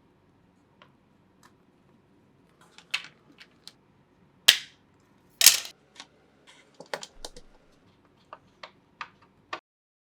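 Hard plastic clicks and snaps from a wall light switch being handled and fitted, with two louder snaps about halfway through, then a quicker run of lighter clicks.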